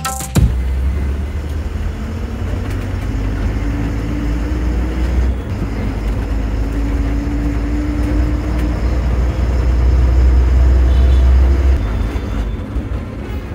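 Bus engine and road noise heard inside the driver's cabin: a steady low drone that drops away near the end.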